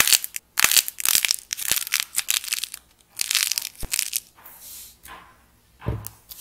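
A painted, hardened clay die cracking and crumbling as it is squeezed between the fingers: a dense run of crisp cracks and crunches, then softer crumbling of the white clay inside. A single dull knock comes near the end.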